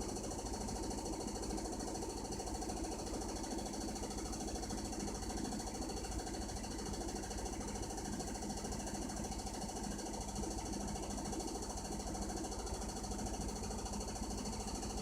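Hitachi BeatWash BW-7SV top-loading washing machine spinning, with a steady, rapid rattling over a constant hum. This is the abnormal noise it makes in every spin, after the wash and after the rinse, which the owner takes to need repair.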